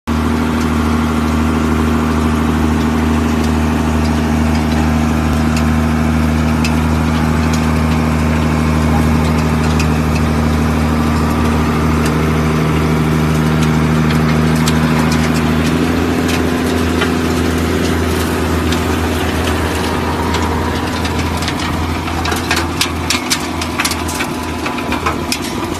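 Tractor engine running steadily while planting potatoes. The engine note shifts about two-thirds of the way in, and near the end quick clicks and rattles join in.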